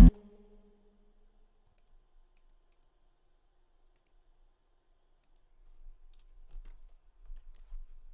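Song playback stops abruptly at the start, leaving near silence with a faint low hum. About six seconds in come a few faint, scattered computer mouse clicks, a small cluster of them near the end.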